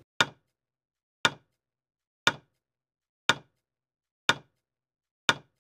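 Countdown-timer sound effect: six clock ticks, one a second, with dead silence between them.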